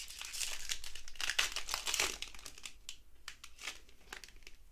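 Foil trading-card pack wrapper crinkling as it is torn open, loudest in the first two seconds, then thinning to lighter rustles and clicks of the cards being handled.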